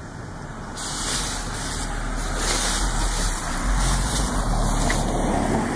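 Wind buffeting the microphone: a steady rushing noise with a heavy low rumble that comes in about a second in.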